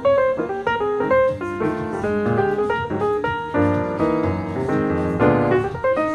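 Piano music, a brisk tune of quickly struck notes and chords.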